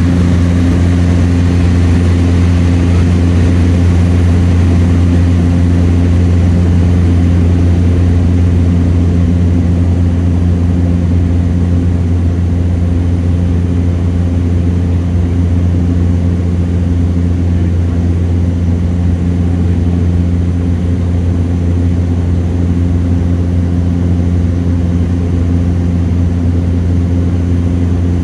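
Cessna Caravan's single PT6A turboprop engine and propeller running steadily in cruise flight, heard inside the cabin: a loud, even low hum with a few steady tones above it.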